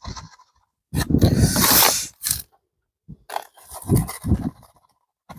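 Gusts of wind buffeting the microphone in two rough bursts, the first about a second in and the second around three to four seconds in.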